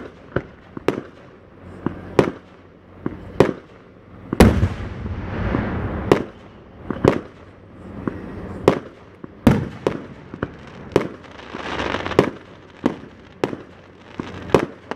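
Aerial fireworks going off: a run of sharp bangs about once a second, with a hiss trailing after a few of them. The loudest bang comes about four seconds in.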